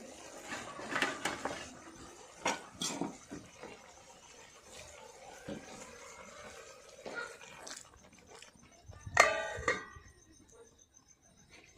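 Metal cooking utensils knocking and clinking against a pot several times in the first few seconds. Later, insects chirp steadily and a short vocal sound is heard about nine seconds in.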